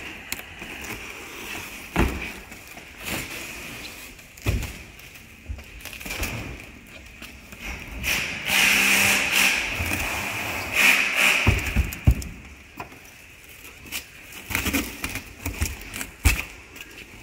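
Black stretch film being pulled off a hand-held roll and wrapped around a pallet load, the film unwinding with a noisy rasp that is loudest for a few seconds around the middle. Several short knocks and thumps along the way.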